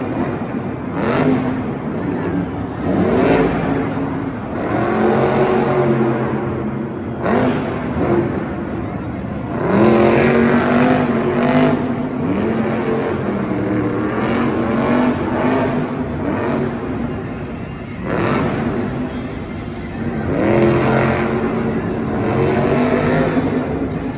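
Motors of RC toy monster trucks revving as they drive, rising in pitch several times as they speed up.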